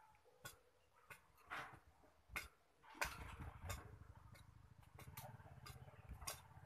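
Caged konin (brown-throated sunbird) giving about ten short, sharp chip notes, scattered and irregular, in its squirrel-like call. A low hum joins about three seconds in.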